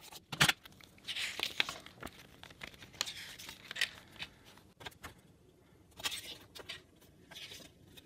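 A plastic CD jewel case clicks sharply once, then a paper CD booklet is slid out and its pages are turned, rustling in several short bursts.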